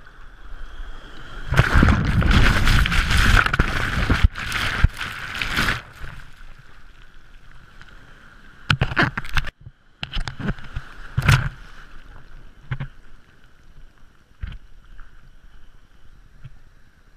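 Surf whitewater washing over a camera held at water level: a loud rush of broken wave for about four seconds near the start, then quieter churning foam with a few sharp splashes against the camera.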